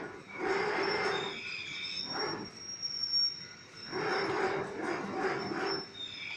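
Manual foot-pedal agarbatti (incense stick) making machine being worked: two strokes of mechanical noise, each about two seconds long, with a short one between, as the press pushes paste out around the sticks. A faint steady high tone runs underneath.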